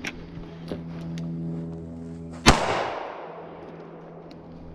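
A single rifle shot about halfway through, trailing off in echo for about two seconds, with a faint steady ringing tone before it and another shot right at the end.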